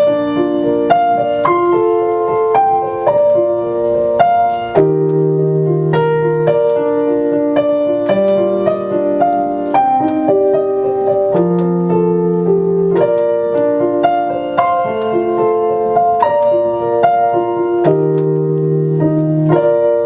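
Piano playing a slow instrumental passage: chords and a simple melody over long held bass notes.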